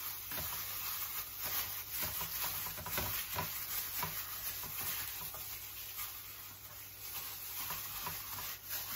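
Hands in disposable plastic gloves rubbing and mixing seasoning into salmon fillets in a stainless steel bowl: soft squishing and rustling with irregular light taps and scrapes against the bowl.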